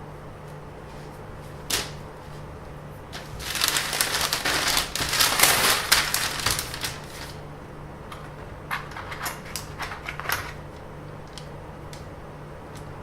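Crackling, rustling handling noise with a few sharp clicks: a single click, then a few seconds of dense crackle, then a quick run of clicks, over a steady low hum.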